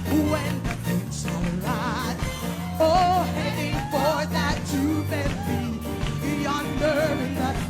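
Gospel music: a voice singing long, wavering notes with heavy vibrato, without clear words, over instrumental backing.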